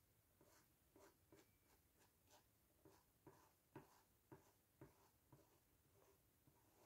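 Faint, soft dabbing of a paint-loaded sponge, about two dabs a second, a few of them a little louder around the middle.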